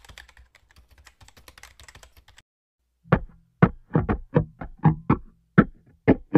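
Keyboard-typing sound effect for typed-on title text: faint, rapid clicks for about two seconds, then after a short pause about a dozen louder, slower key strikes.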